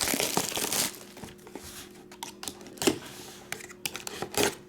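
A trading-card box's packaging being torn and crinkled open for about the first second, then light clicks and taps as the box and card are handled.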